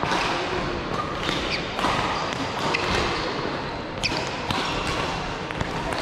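Racket-sport rally: sharp hits about a second apart, with a few short high squeaks.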